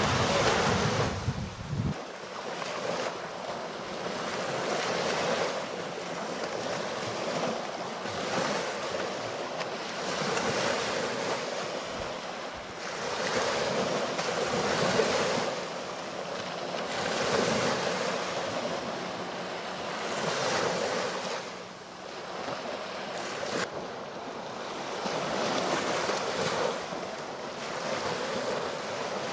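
Small sea waves washing up on a sandy beach, the surf swelling and falling back every two to three seconds. Wind buffets the microphone for the first couple of seconds.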